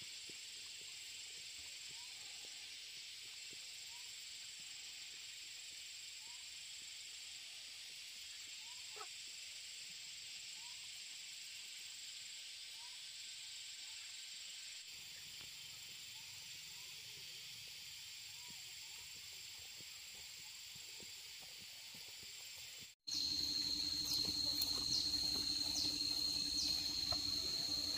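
Steady high-pitched insect chorus, a shrill hiss with faint short chirps every second or so. About three-quarters of the way through the sound cuts abruptly, and a louder steady high whine with a low hum takes over.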